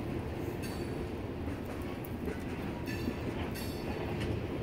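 Freight train of covered hopper cars rolling past: a steady low rumble of steel wheels on rail, with a few brief high-pitched squeaks.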